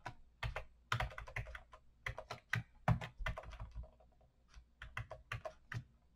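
Computer keyboard typing: quick, irregular runs of key clicks, with a short pause about four seconds in.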